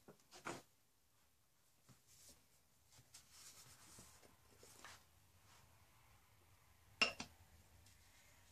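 Faint rustling and rubbing of small objects being handled, with a soft click about half a second in and a sharper click about seven seconds in.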